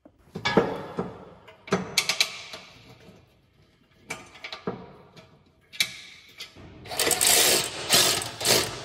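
Steel mulching baffle clanking and scraping against the underside of a steel mower deck a few times as it is held in place. Then a cordless ratchet runs for about a second and a half near the end, driving in a mounting bolt.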